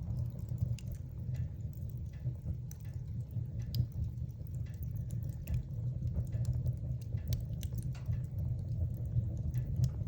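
Wood fire burning in a fireplace: a steady low rumble of the flames with frequent small irregular crackles and pops from the burning wood.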